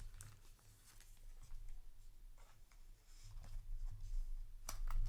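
Faint rustling and light scraping of a trading card being slid into a plastic card sleeve, with a few small ticks and a sharper tap near the end.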